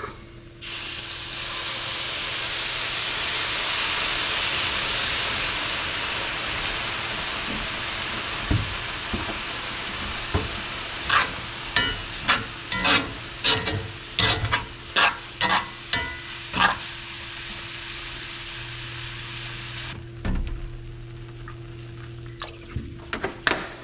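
Cold milk poured into a hot cast-iron skillet of browned sausage and flour, sizzling loudly the moment it hits the pan, the hiss easing off slowly as the gravy base heats. Partway through, a metal spoon stirs the gravy, clacking against the skillet about twice a second.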